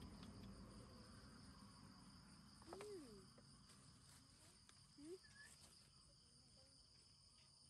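Faint, steady high chirring of night crickets, with two brief soft cries about three and five seconds in.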